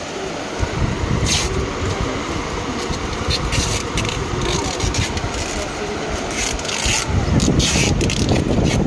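Plastic-wrapped decoration packets crinkling and rustling as they are handled, with rubbing and knocking of handling noise on the microphone. Faint background chatter runs underneath.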